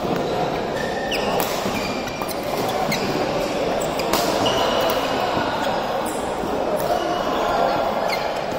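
Badminton rallies on several courts: sharp racket hits on shuttlecocks every so often and short squeaks of court shoes on the floor, ringing in a large sports hall.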